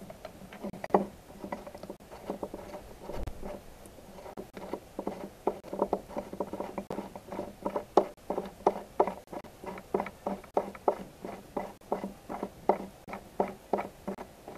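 Steel cylinder of a hand-built model steam engine being worked by hand onto its piston: a run of light metal clicks and knocks, sparse at first, then about two or three a second.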